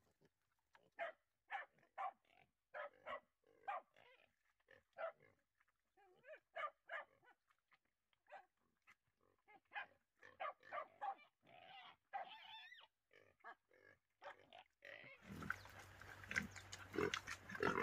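Young wild boar piglets giving short, faint calls, one every second or so, as they crowd in to feed. Near the end a steady background noise comes up under them.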